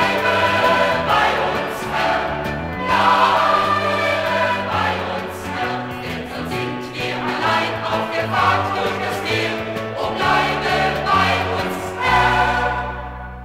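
A church choir with band singing a German congregational song; about twelve seconds in they land on a held final chord that fades away.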